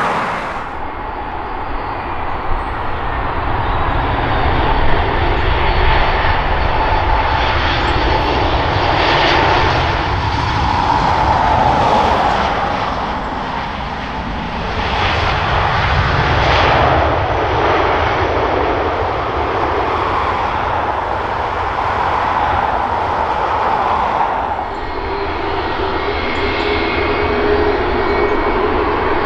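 Jet airliner engines running loudly through a landing: a Ryanair Boeing 737 MAX with CFM LEAP-1B turbofans touching down and rolling out, the noise swelling and easing. Near the end, a Boeing 757 taxiing with a steady engine hum.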